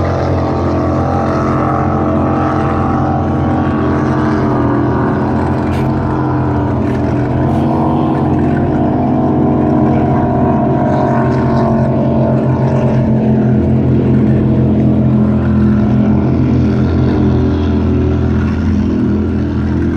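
Motorboat engine running steadily, a low, even drone whose pitch wavers slightly and which grows a little louder midway.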